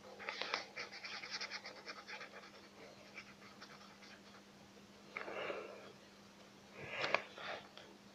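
Rapid scratchy strokes of an orange drawing tool on paper, colouring in, dense for the first few seconds. This is followed by two short rustling bursts about five and seven seconds in.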